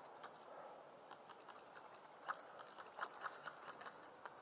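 Faint, irregular clicks and crackles over a quiet background. The sharpest comes a little over two seconds in, followed by a quick run of clicks about three seconds in.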